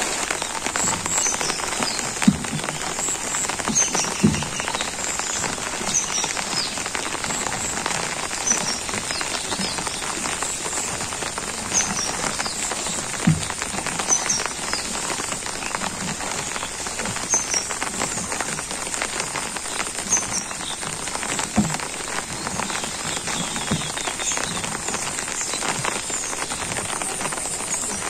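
Steady rain falling on water and leaves, a dense patter of drops with now and then a single heavier drop landing with a dull thud.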